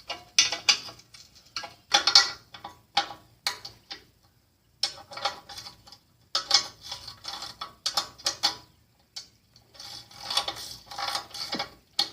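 Hand tools clicking and clinking on metal in irregular bursts, with short pauses, as the dune cycle's axle is worked loose.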